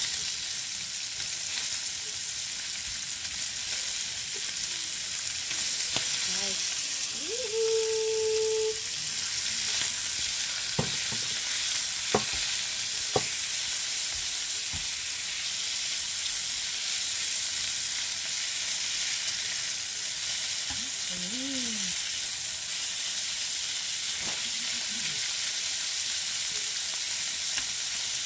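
Food sizzling as it fries in a pan, a steady hiss throughout, with stirring and a few sharp utensil clicks. A few faint pitched calls sound in the background.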